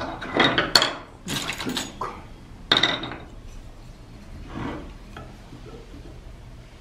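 Pottery tools and hard objects being picked up and set down on a workbench: clattering and scraping in several short bursts over the first three seconds, then one fainter scrape.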